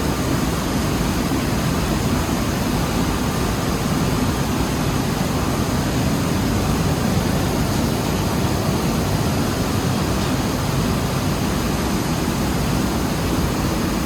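Rice mill machinery running with a steady, even drone and no breaks.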